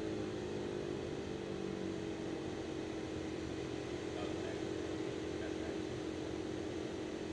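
Lake Amphibian's pylon-mounted pusher engine and propeller droning steadily, heard inside the cabin at a low power setting during a descent to a water landing.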